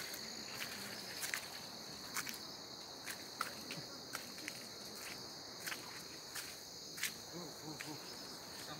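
Steady high-pitched insect drone, with irregular short clicks and scuffs of footsteps on a wet, muddy dirt track.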